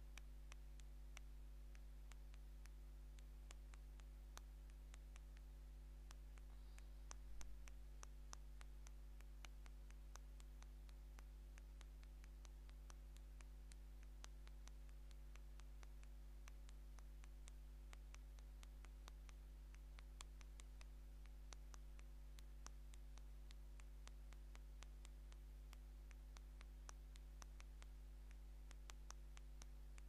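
Fingernails tapping quickly and irregularly on the touch screen of an older LG phone while texting: a faint, steady patter of small clicks, several a second, with one slightly louder knock about seven seconds in.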